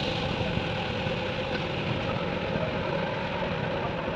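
A machine running steadily: an even, unbroken engine-like hum.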